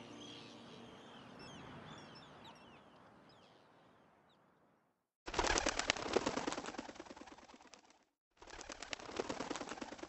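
Birds chirping, with short calls that rise and fall in pitch, fading out over the first few seconds. After a brief silence, two loud stretches of dense fluttering follow with a short gap between, each about three seconds long: the wings of many birds flapping.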